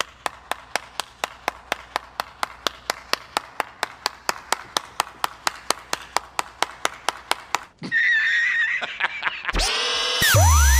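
One person clapping alone, even claps at about four a second with a slight echo. Near the end the claps stop and an electronic sound effect cuts in: a hiss, then loud sweeping rising and falling tones over a deep bass.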